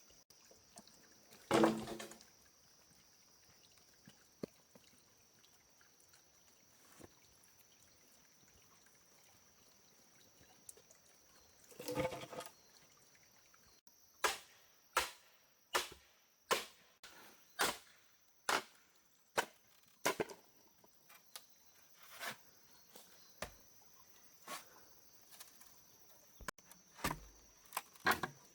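Bamboo being chopped with a blade: a run of sharp strikes, roughly one a second, starting about halfway through, after two single louder knocks earlier on.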